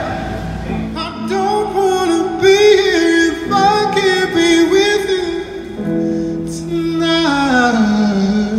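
A song: a solo voice singing long held, wavering notes over a steady low accompaniment, sliding down in pitch about seven seconds in.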